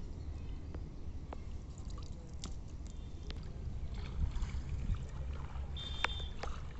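Shallow pond water sloshing and trickling round a person's legs as he wades, over a steady low rumble, with scattered small clicks.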